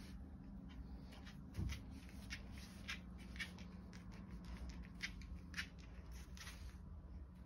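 A vizsla puppy's claws clicking on a laminate floor as it walks about, roughly two light ticks a second, with one dull thump about a second and a half in, over a steady low hum.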